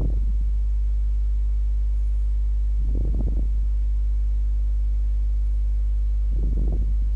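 Steady low electrical mains hum with a faint buzz of overtones, broken three times by brief muffled noises: at the start, about three seconds in, and near the end.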